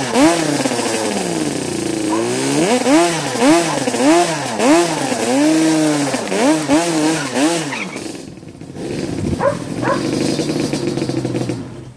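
Yamaha Banshee 350's twin-cylinder two-stroke engine revved hard in rapid throttle blips, about two a second, with one longer dip and a held rev, while the rear tyres spin on asphalt in a burnout. About eight seconds in the revving stops and gives way to a quieter, steadier running sound.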